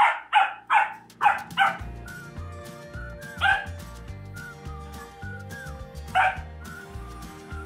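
Pembroke Welsh Corgi puppy barking at a hair dryer whose noise upsets it: five quick barks in the first couple of seconds, then a single bark about halfway and another near the end.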